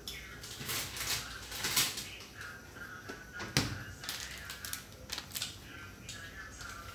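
Scattered clicks and knocks of kitchenware being handled out of sight, irregular, the loudest about three and a half seconds in, over a faint high warbling.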